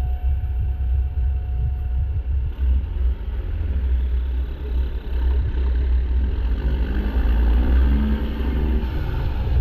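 Straight-piped PACCAR MX13 inline-six diesel in a semi truck with its emissions equipment fully deleted, running with a deep steady rumble. In the last few seconds it pulls harder and its pitch rises.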